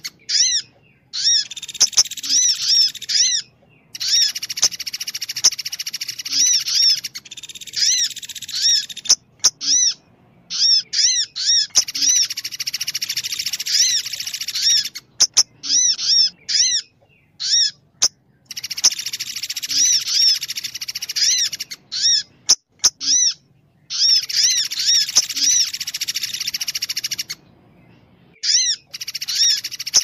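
Bird-lure recording of a Sunda pygmy woodpecker and an olive-backed sunbird calling. It plays as repeated bursts of rapid, high chirping notes a second or two long, broken by short pauses.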